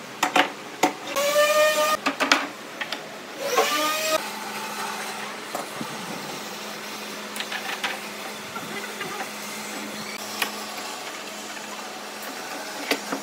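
Metal pipe clamps being fitted and tightened across a glued-up wooden tabletop. A few knocks and clicks are followed by a squeak of about a second, then a shorter squeak that rises in pitch, likely from a clamp screw turning under load. Light clicks of handling follow.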